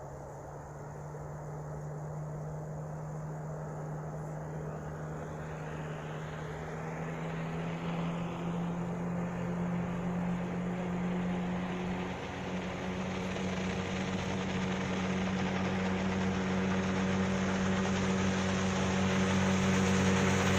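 Sea Pro 9.9 two-stroke outboard motor running, its tone slowly rising in pitch as it grows steadily louder.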